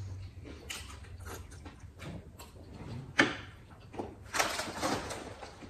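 Close eating sounds of spicy instant noodles being slurped and chewed, with many small wet clicks and a sharper tick about three seconds in. Near the end comes about a second of breathy hissing, the mouth-cooling breath of someone feeling the chilli heat.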